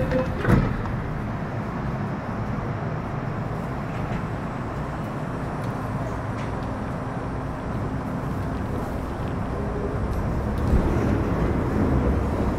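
MTR Metro Cammell M-Train (C250) electric multiple unit running, heard from inside the car: a steady low rumble of wheels on rail with a faint steady tone from the Mitsubishi RCT chopper drive. A hiss cuts off right at the start and a sharp thump comes about half a second in; the running grows slightly louder near the end.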